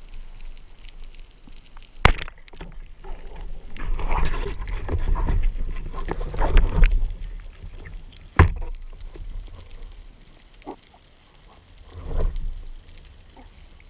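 Speargun shot heard underwater: a sharp crack about two seconds in, followed by several seconds of scraping, knocking and water noise as the speared fish is handled. A second sharp knock comes about two-thirds of the way through.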